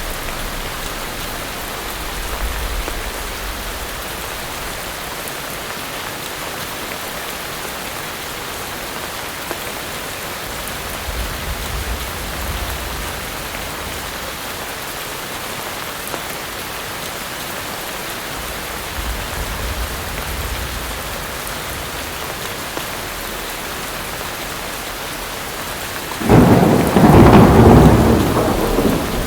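Steady heavy rain, with low rumbles of thunder a few times and a loud thunderclap near the end that rolls on for about three seconds.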